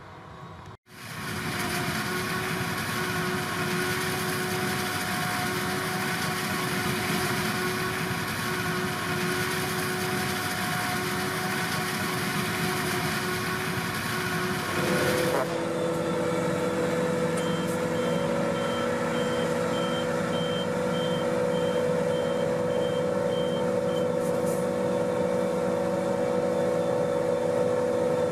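Diesel engines of heavy harvest machinery running steadily. About halfway through, the sound changes to another machine's engine, and a reversing beeper pulses steadily for several seconds.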